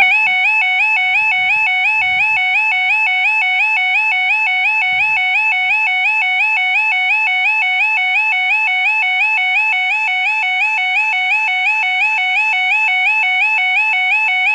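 UK level crossing audible warning alarm sounding, a loud rapid two-tone electronic warble repeating without a break, starting abruptly: the signal that the barriers are lowering and a train is approaching.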